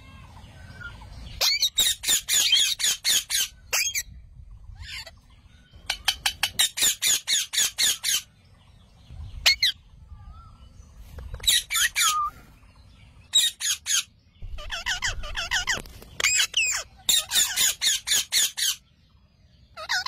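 Rose-ringed (Indian ringneck) parakeets squawking: repeated bursts of rapid, high-pitched calls, each burst lasting up to a couple of seconds, with short pauses between.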